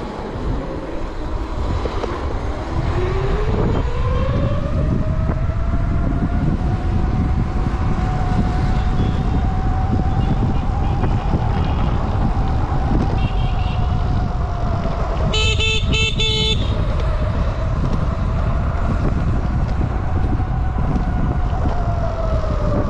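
Electric motor of an e-bike or electric skateboard whining as it speeds up, holding a steady pitch while cruising, then dropping as it slows near the end, over rumble of wind and road. About fifteen seconds in, a horn honks once for about a second.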